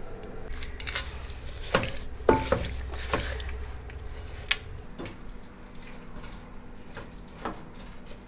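Kitchen tap water running into a sink for about four and a half seconds, then shut off, with several sharp knocks and clinks of dishes or utensils.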